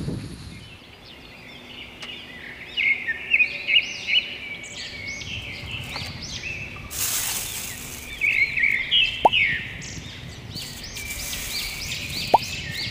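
Birds chirping outdoors, many short repeated calls overlapping throughout, with two brief rushes of noise partway through.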